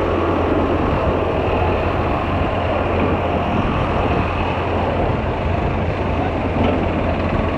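Steady wind rumble and buffeting on the microphone at a beach, with no letup.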